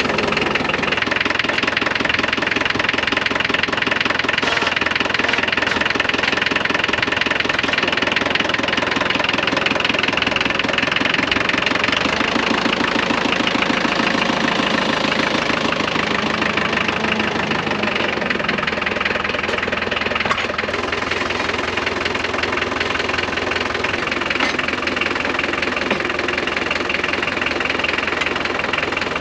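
McCormick D430 tractor's three-cylinder diesel engine idling steadily, with an even diesel knock.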